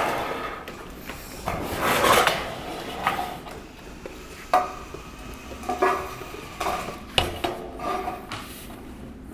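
Sheet-metal panels being shifted and fitted into place: irregular metallic scraping, rattling and clanking, with a few sharper knocks about four and a half and seven seconds in.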